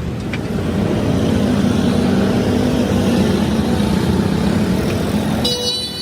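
Road traffic with a vehicle engine running, a low hum wavering in pitch under steady road noise. A short horn toot sounds near the end.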